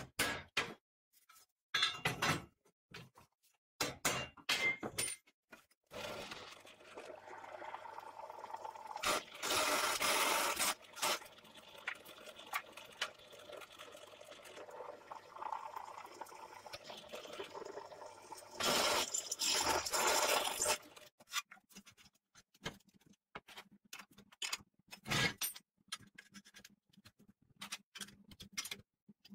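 Steel parts clinking and knocking as they are handled, then a bench drill press running for about fifteen seconds with a steady motor hum, louder about ten seconds in and again near twenty as the bit cuts into a steel plate. More clinks of metal parts follow.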